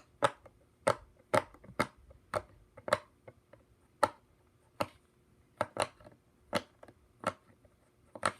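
Silicone pop-it fidget toy being pressed, its bubbles popping one at a time in a series of sharp pops, one or two a second at an uneven pace.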